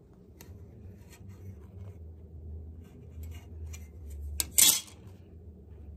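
Tailoring tools being handled on a work surface: scattered light metallic clicks and clinks, then a sharp click and a loud short rasp about four and a half seconds in.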